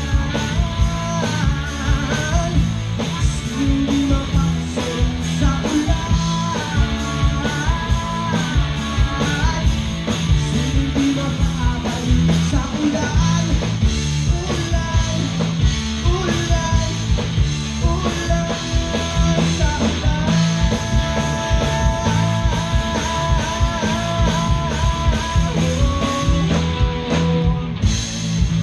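Live rock band playing an instrumental passage: a guitar plays melodic lead lines over bass and a steady drum beat.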